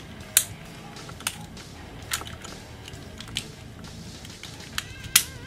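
Plastic joints and parts of a Takara Tomy Masterpiece MP-30 Ratchet transforming figure clicking as they are pulled and turned by hand: about six sharp, irregularly spaced clicks, the loudest near the end.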